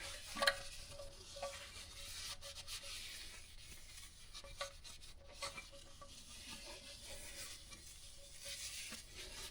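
Faint rubbing of a rag wiping an oily car part clean, with a few light clicks and taps.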